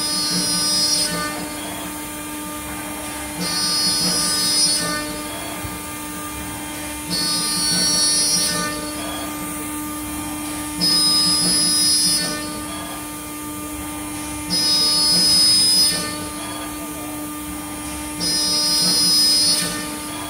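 CNC router spindle cutting MDF with a small bit: a steady whine, with a louder, higher-pitched surge about every three and a half seconds, six in all, each lasting over a second.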